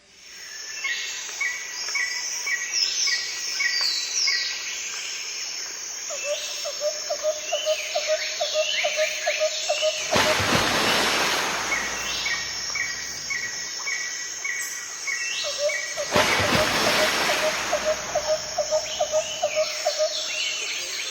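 Several birds calling and singing together: quick repeated chirps and short trills, with one bird giving a steady run of lower repeated notes. Two rushing surges of noise come about halfway through and again a few seconds later.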